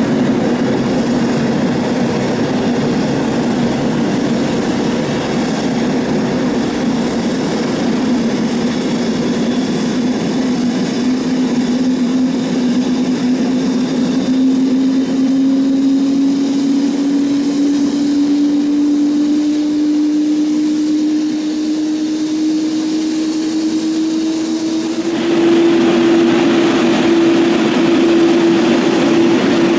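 Jet airliner engines: a steady rushing noise with a whine that slowly rises in pitch. About 25 seconds in the sound switches abruptly to louder jet noise from another airliner coming in to land.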